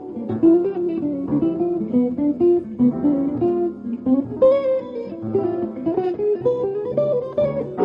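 Jazz guitar playing a flowing line of plucked single notes and chords.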